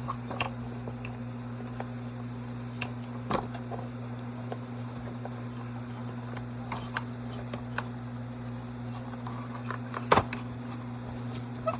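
A steady low hum with a few sharp clicks and knocks, one a few seconds in and a louder one near the end, from handling and prying at the plastic parts of an animated Santa figure being taken apart.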